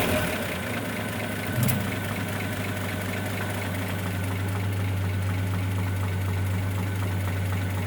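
1941 Chevrolet 216 stovebolt inline-six idling steadily with a regular light ticking: the strange engine noise in question. There is one brief sharp click nearly two seconds in.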